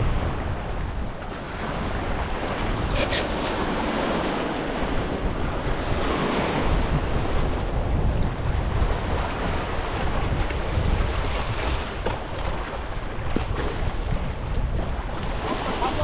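Wind buffeting the microphone in a heavy rumble, over the wash of sea water around a small boat, swelling and easing.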